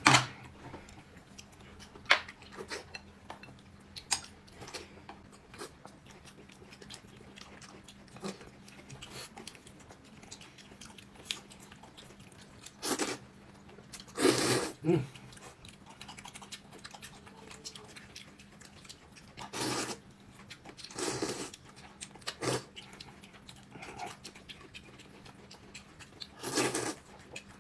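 A person eating crunchy food: bites and chewing close to the microphone, in scattered short bursts with a few louder ones.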